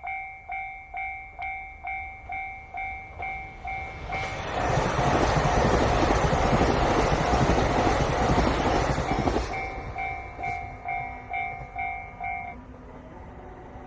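Japanese level-crossing warning bell dinging steadily about twice a second while a JR Hokkaido Kiha 261 series diesel limited express passes over the crossing. The train's rush covers the bell for about five seconds in the middle, and the bell stops a little before the end.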